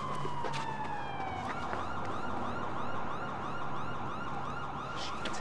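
Police car siren: one tone slides slowly down, then about two seconds in it switches to a fast yelp, rising and falling about three times a second. It is fainter here than when the car arrives just afterwards.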